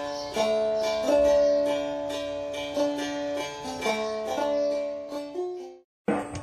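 Background music played on a plucked string instrument: a melody of picked notes that dies away about six seconds in. After a brief silence, a different, noisier sound starts.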